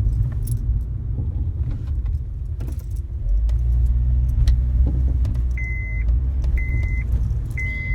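Car driving over a rough street: a steady low road rumble with several sharp knocks and clunks from the right front suspension as it hits bumps. About five and a half seconds in, a high electronic beep starts repeating about once a second.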